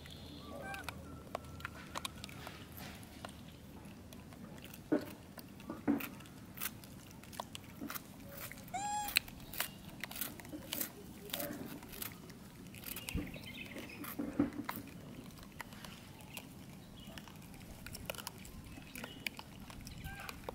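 Long-tailed macaques chewing and picking food off the ground: scattered small clicks and crunches, with one short high arching call about nine seconds in.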